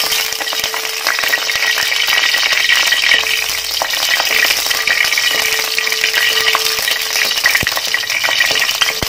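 Dried red chillies sizzling and crackling in hot coconut oil in an aluminium pan, stirred and scraped around by a wooden spatula. A faint steady hum comes and goes underneath.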